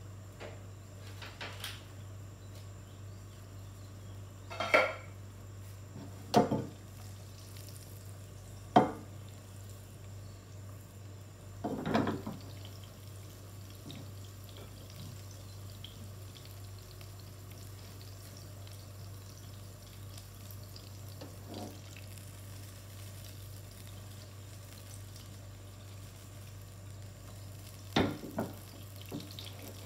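Butter melting in a nonstick pan over a gas burner with a faint steady sizzle, broken by several sharp knocks and clatters of pan and kitchenware, the loudest about five seconds in and a double knock near the end as the pan is shifted on the burner.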